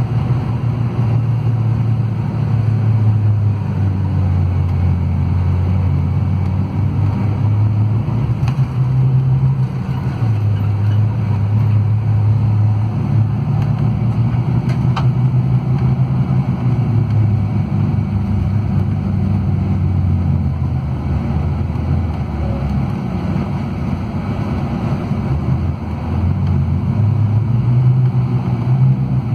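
Scania DC13 13-litre inline-six diesel of a Scania K440IB coach, heard from inside the passenger cabin while driving. The low engine note rises and falls several times as speed changes, over steady road noise.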